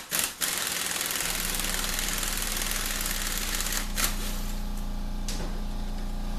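Pneumatic air ratchet with a 12-point socket running continuously, spinning a Torx feed bolt out of a transmission center support. About a second in, a steady low motor hum joins it and keeps going.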